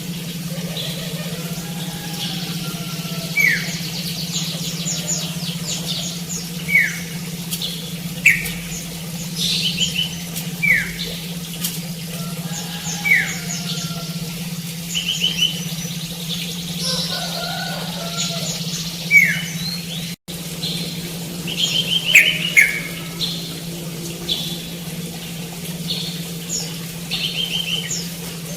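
Several birds calling: a short downward-sliding call repeated every two to three seconds, mixed with quick trilled chirps, over a steady low hum.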